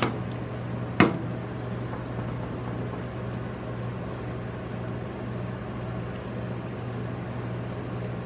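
Steady low hum of a rolled-ice-cream cold-plate machine running. Two sharp taps of metal spatulas on the steel plate come at the start and about a second in.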